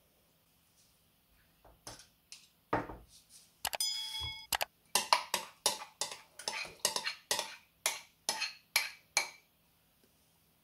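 A spoon clinking against a bowl as ricotta is spooned in, with one ringing clink, then a quick run of sharp taps, about three a second.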